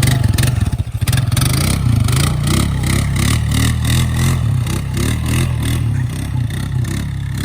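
Honda Rancher 420 ATV's single-cylinder engine running hard under load, revs rising and falling as it pulls through mud.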